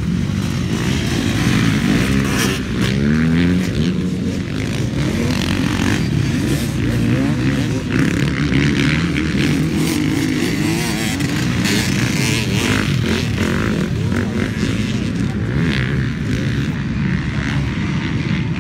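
Motocross bikes racing along a dirt track, their engines revving up and dropping back again and again as the riders work the throttle and gears, with more than one bike running at once.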